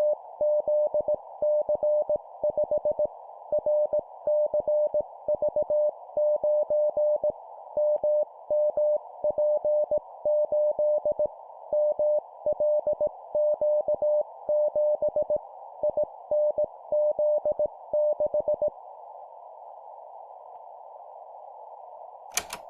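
Morse code practice tone at 17 words per minute: a single steady beep keyed on and off in dots and dashes, sending four-character groups of three letters and a number, over steady hiss. The keying stops about 19 seconds in, the hiss carries on, and a short click comes near the end.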